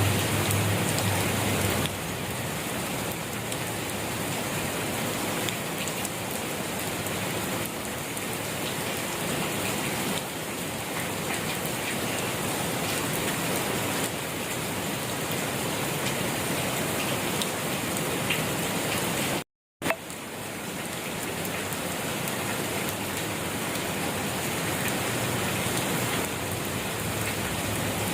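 Steady rain falling on a surface: an even hiss with scattered patter of drops. Two-thirds of the way through it cuts out to silence for a split second, then resumes.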